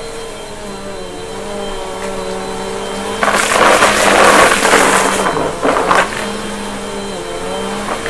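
Bissell upright bagless vacuum cleaner running on carpet, its motor humming with a pitch that wavers slightly. About three seconds in it is pushed over a pile of small dry debris, and for about three seconds there is a loud crackling rattle as the pieces are sucked up into the clear dust cup.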